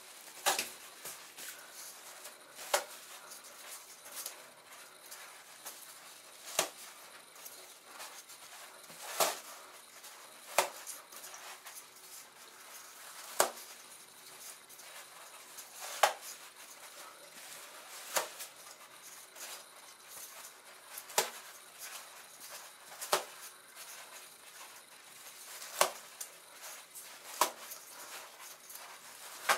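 Toilet paper being pulled off the roll, the paper rustling softly with a sharp snap or crackle every two seconds or so.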